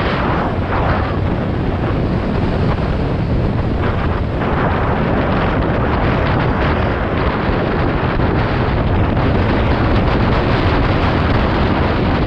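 Loud, steady wind noise buffeting a helmet-mounted GoPro Hero 7's microphone at motorcycle riding speed, with no foam windscreen fitted over the camera.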